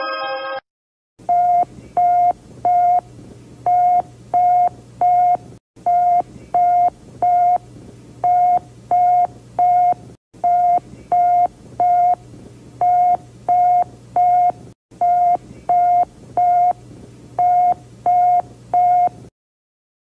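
Emergency alert alarm of a single mid-pitched electronic tone beeping in groups of three, about three beeps every two seconds, over a low steady hum, with brief dropouts every few seconds. It starts about a second in, just after a chime-like musical tone cuts off, and stops shortly before the end.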